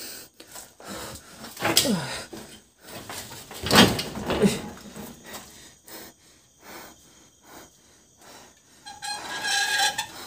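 A man groaning and exhaling heavily without words: a few drawn-out groans that fall in pitch, the loudest about four seconds in, and another short vocal sound near the end, with quieter pauses between.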